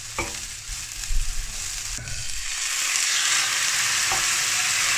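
Shallot and rehydrated chicken-of-the-woods mushroom pieces frying in oil in a pan, being stirred; the sizzle swells and grows louder about two seconds in, then holds steady.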